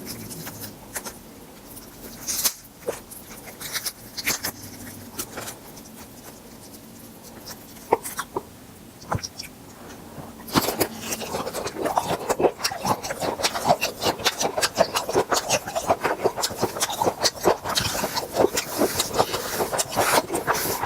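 Close-up eating sounds of grilled tiger prawns. For about the first ten seconds there are scattered clicks and taps, then dense, rapid crunching and chewing clicks run on to the end.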